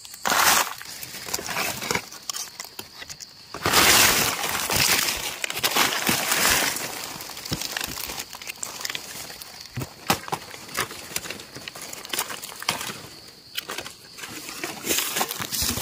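Dry fallen leaves rustling and crackling as hands work through the leaf litter, with louder bursts about half a second in, from about four to seven seconds, and again near the end.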